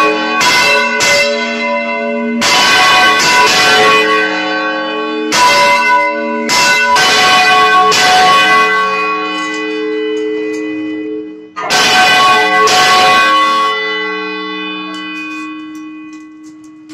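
Church bells swung full-circle in a general bell swinging, their clappers striking in irregular clusters with several bell pitches ringing over one another. After a last cluster of strikes near 13 s, the ringing fades away as the bell is slowed by hand at its counterweight.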